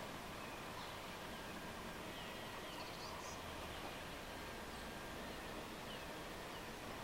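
Outdoor ambience: a steady soft hiss with faint, scattered short chirps and trills of small birds.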